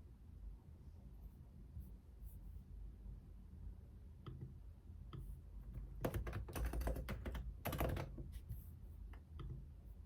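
Typing on a computer keyboard. A few scattered keystrokes come first, then a quick run of typing lasting about two seconds, then a few more taps.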